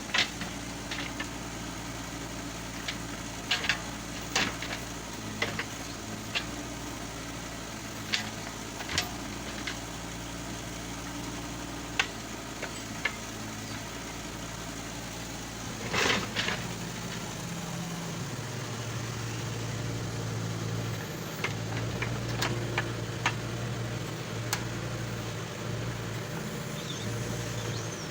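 Compact backhoe loader's diesel engine running steadily, with scattered sharp metal knocks and clanks from the working machine. There is one longer, louder scrape partway through, and the engine then runs harder and louder.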